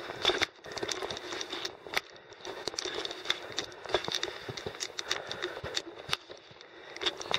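Crunching footsteps on the ground while hiking, an irregular run of sharp clicks and crunches.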